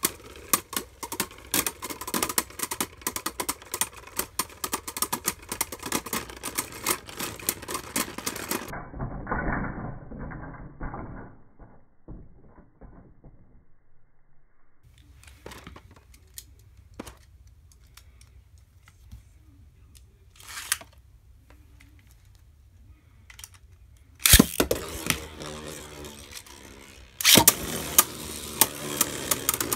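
Arc Bahamut and Maximum Garuda Beyblade tops spinning in a clear plastic stadium, clattering against each other in rapid clicks that thin out as they slow and stop. After a quiet stretch with a few light clicks, the tops are launched again near the end: a sharp clack, then dense clattering once more.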